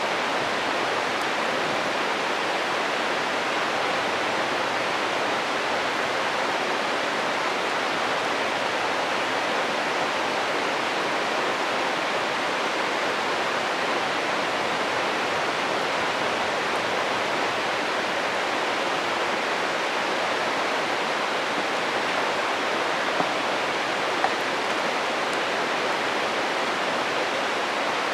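Steady rushing of a stream flowing nearby, an even water noise that does not change. Two faint snaps about three quarters of the way through come from the campfire's burning wood.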